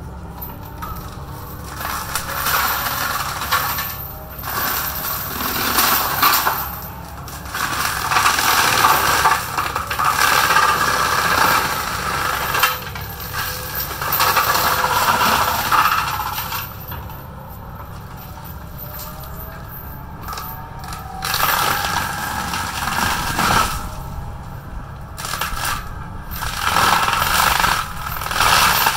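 Kobelco 140 excavator cutting into trees with its tree-cutting head: bursts of crackling, splintering wood, each two to four seconds long, come five or six times over the engine's steady running.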